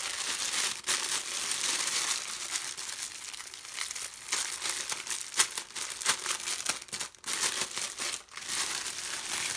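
Crinkly packaging being handled and opened by hand: a steady rustle broken by many sharp crackles.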